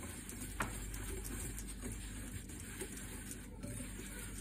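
Wire whisk stirring a dry mix of cornflour, rice flour and spice powders in a bowl: a steady soft scraping with light irregular ticks of the wires against the bowl, and one sharper click about half a second in.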